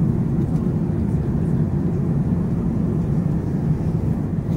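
Steady low rumble of a Boeing 767-400ER jet airliner, its engines and airflow making an even, unbroken noise.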